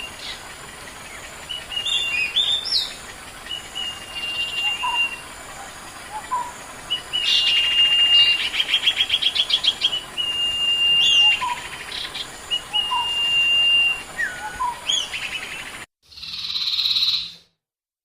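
Sirpu (sirdung) bird singing: long, level whistled notes mixed with short chirps, and a fast trill about seven seconds in. Near the end the song cuts off abruptly, giving way to a short burst of a different noise and then silence.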